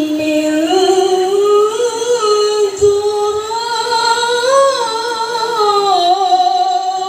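A woman's melodic Quran recitation (tilawah) amplified through a microphone and PA speakers. She holds one long melismatic line on a vowel, wavering and slowly rising and falling in pitch. A brief low thud comes about three seconds in.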